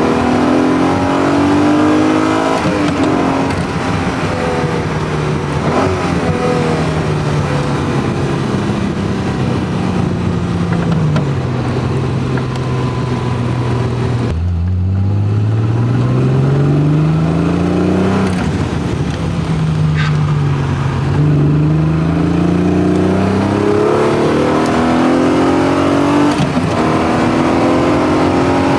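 Modified 3.0-litre Alfa Romeo V6 in a 1984 GTV6 pulling through the gears under load. The revs climb, then drop suddenly at each gear change, several times over, with one sharp change about halfway through followed by a long climb.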